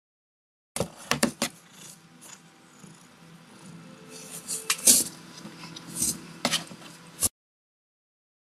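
Sharp knocks and scrapes of cardboard as a cat moves inside a cardboard cat house and pokes a paw out through the holes in its wall. A quick cluster of knocks comes about a second in, the loudest knock near the middle. The sound cuts off suddenly before the end.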